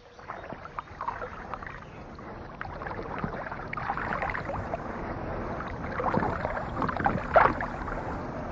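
Water splashing and lapping, as of a small boat or oars, in irregular little splashes that grow louder a few seconds in, with one sharper splash near the end.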